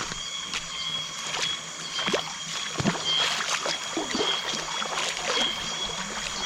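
Stream water running and gurgling over rocks, with many short splashes and bubbling plinks over a steady rush, and a steady high-pitched tone above it.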